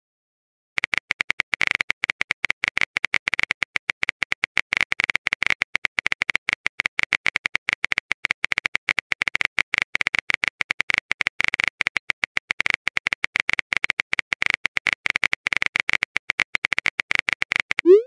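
Chat-app typing sound effect: rapid, irregular keyboard clicks starting about a second in and running on without a break, while the next message is being typed.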